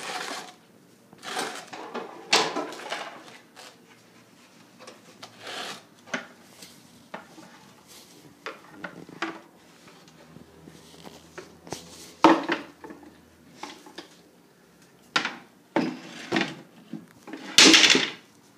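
Irregular knocks, scrapes and rustles of household objects being moved and set down on a tile floor: a wooden stool, boxes and plastic containers being pushed into place. The loudest knocks come about twelve seconds in and near the end.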